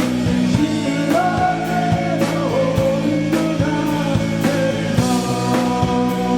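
Rock band playing: a sung melody over distorted guitars and a steady drum beat, with the voice giving way to the instruments about five seconds in.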